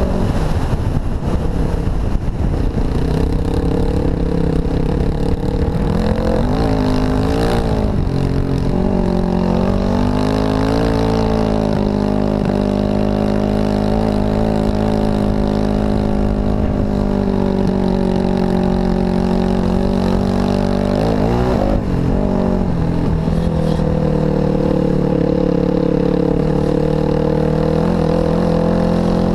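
Dirt bike engine running under way, its pitch dipping and rising about seven seconds in and again about twenty-one seconds in, with wind rumble on the microphone.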